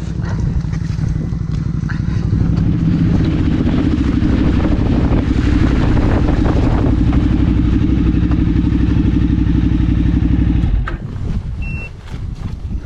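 KTM twin-cylinder adventure motorcycle engine running hard at steady revs as it pulls through slippery mud, then dropping away sharply about eleven seconds in as the throttle closes. A short high beep sounds near the end.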